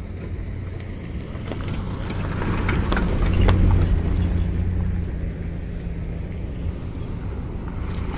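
A car engine running steadily at low revs close by. It grows louder about three seconds in and then eases off, with a few short clicks around its loudest point.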